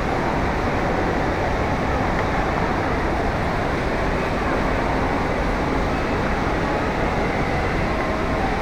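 Steady rumble and hiss of wind and movement on an action camera's microphone while skating across an ice rink.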